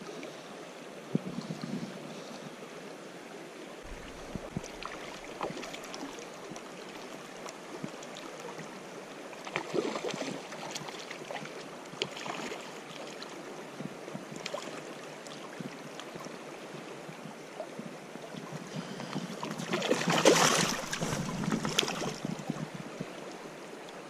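River current flowing, with irregular splashes as a hooked brown trout thrashes at the surface; the biggest run of splashing comes about 20 seconds in.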